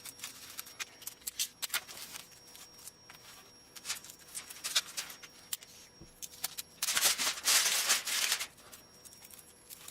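Aluminum foil and adhesive tape being handled on cardboard: scattered small crackles and clicks, then a louder crinkling rasp lasting about a second and a half, about seven seconds in.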